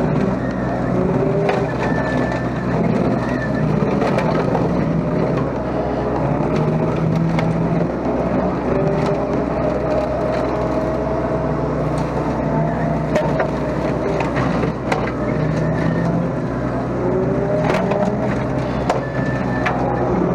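Mini excavator engine running steadily under load while a home-built slasher attachment cuts through thick brush. A whine wavers up and down in pitch, and sharp cracks and snaps from the cut brush are scattered throughout.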